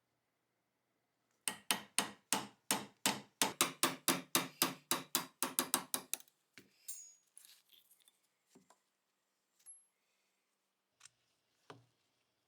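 A rapid run of about twenty hammer taps, roughly four a second, each with a short ring, lasting about five seconds from a second and a half in. A few light clicks and taps follow.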